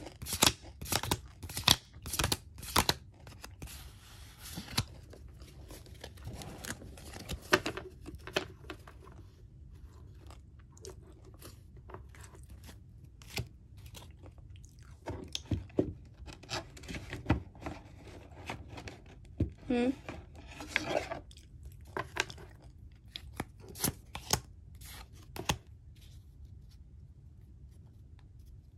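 Pokémon trading cards and their foil booster pack being handled: irregular snaps, flicks and short rustles as cards are pulled out and flipped through, busiest in the first few seconds and again about halfway through.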